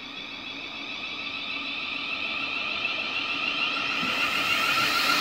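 Thameslink Class 700 electric multiple unit approaching, its traction equipment giving a whine of several steady high tones that grows steadily louder as it nears.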